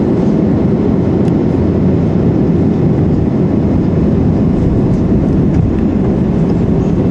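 Steady low rumble of Airbus A330-200 cabin noise, heard from a window seat by the wing: jet engines and airflow during the descent to landing.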